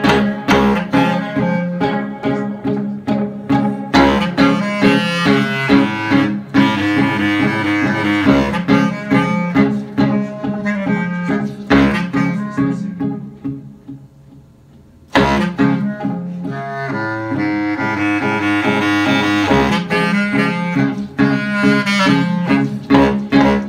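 Live band music with no singing: a bass clarinet plays the lead line over strummed bouzouki and electric guitar, with a steady rhythm. About halfway through the music falls away to a low level for a second or two, then comes back in abruptly.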